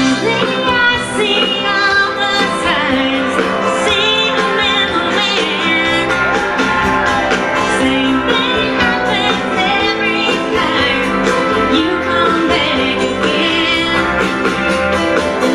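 Live country-rock band: a woman singing lead over acoustic guitar and electric bass.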